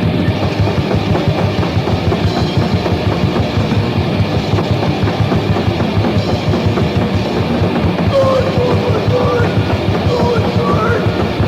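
Japanese crust punk band playing a fast song: rapid, pounding drum kit under distorted guitar and bass. A wavering higher line enters about eight seconds in.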